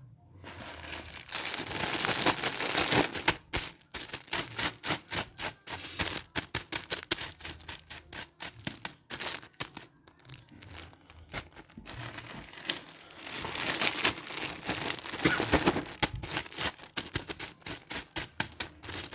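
Dense, irregular crackling and clicking, many sharp clicks a second, loudest in a stretch near the start and again in the second half.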